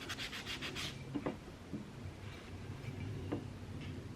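Rusty steel plane blade being scrubbed by hand with quick back-and-forth strokes, about eight a second, to clean the maker's stamp. The rubbing stops about a second in, followed by a few light handling clicks.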